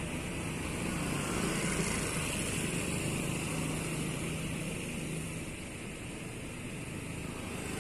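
Passing cars on a street: engines and tyres of cars driving by close, a steady hum that swells through the middle few seconds and then eases off.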